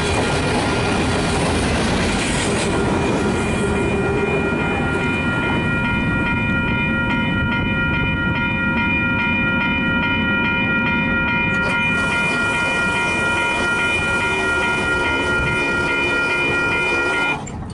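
Freight train of covered hoppers rolling past on steel rails, its wheels and cars rumbling, then carrying on as it recedes. From about three seconds in, several steady high-pitched ringing tones are held over the rumble until they cut off abruptly near the end.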